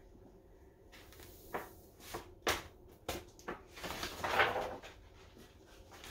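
Handling noises from a stiff paper sheet and a plastic glitter jar on a countertop: several short sharp taps and knocks, then a rustling swell of paper a little past the middle, as loose glitter is tipped from the folded sheet back into the jar.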